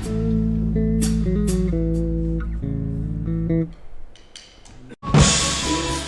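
Band sound check: sustained guitar chords over a low bass, changing pitch a few times, fade out after about three and a half seconds. After a near-quiet gap, the full band with drums and crashing cymbals comes in suddenly about five seconds in.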